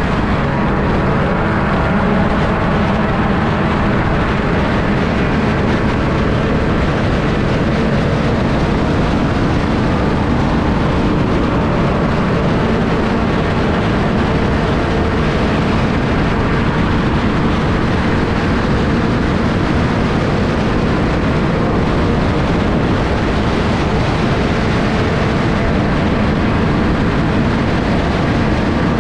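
Sport compact race car running at racing speed, heard on board: a steady, loud engine note buried in heavy wind and road noise.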